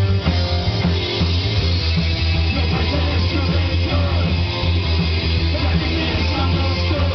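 Live rock band playing: electric guitars and drums over a heavy, steady bass line.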